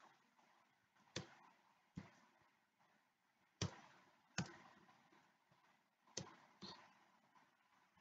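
Computer keyboard keys pressed one at a time as a password is typed: about six faint, separate key clicks spaced unevenly.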